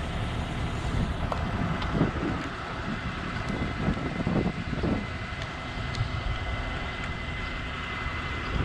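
Diesel engine of a Tadano 50-ton mobile crane running steadily while it holds a load on its hook, a low rumble with a thin steady whine above it.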